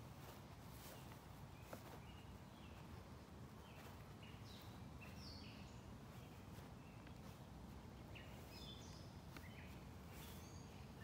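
Faint outdoor ambience: a low steady background rumble with small birds chirping in short, repeated calls, busiest a few seconds in and again near the end.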